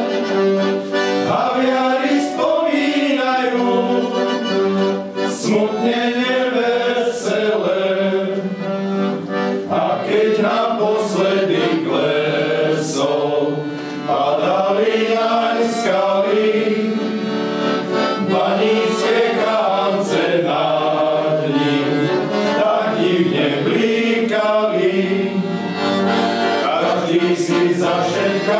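Male choir singing a song in several-part harmony, the words clearly sung, with no break.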